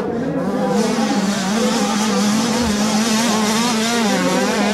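Engines of 60cc youth two-stroke motocross bikes racing. Their high engine note holds steady while other pitches rise and fall as the throttles open and close.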